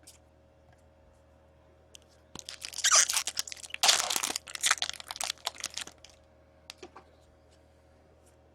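A hockey card pack wrapper being torn open and crinkled: a burst of crackling lasting about three and a half seconds, then a few light ticks.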